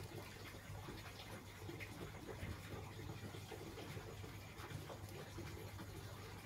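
Faint scratching of tailor's chalk drawn over cotton fabric to mark a cutting line, with light rubbing of the cloth and measuring tape under the hands, over a low steady hum.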